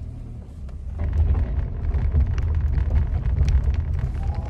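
Cabin noise of a light van driving over rough ground: a steady low rumble that grows louder about a second in, with scattered crackle over it.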